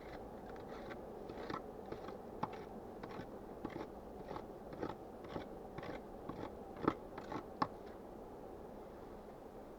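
Footsteps crunching in snow at a walking pace, about two a second, stopping near the end, over a steady low hiss of wind.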